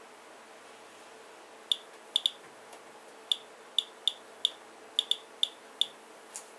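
Geiger counter clicking at random, uneven intervals, each click one detected count, while it measures a rain sample. The clicks start about two seconds in, roughly a dozen of them, over a faint steady hum.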